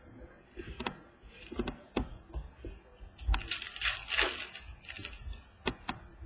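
Trading cards being handled and snapped against each other, with short clicks throughout and a louder crinkling rustle, like a pack wrapper being handled, about three seconds in.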